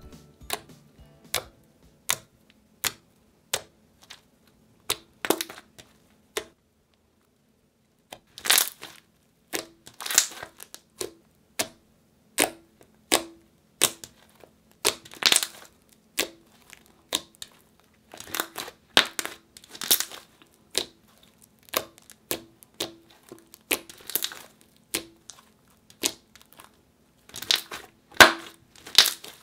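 Hands squishing, poking and stretching a freshly activated fluffy slime, giving irregular sticky pops and crackles, with a brief lull about seven seconds in.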